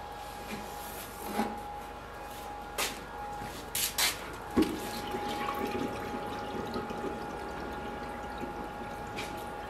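A red-hot sword blade quenched in a tall tank of oil: a few sharp metal knocks, then from about halfway through a steady bubbling and sizzling as the blade goes in and the oil boils against it. A gas forge's burners hum steadily underneath.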